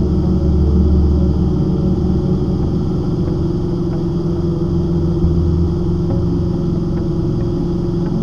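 Steady drone of a Cessna 150's four-cylinder Continental O-200 engine heard inside the cabin, overlaid by sustained low notes that shift in pitch a couple of times.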